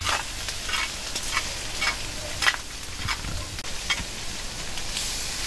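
Food sizzling in a wide pan over an open wood fire while a spoon stirs it, with irregular sharp scraping clicks about once or twice a second.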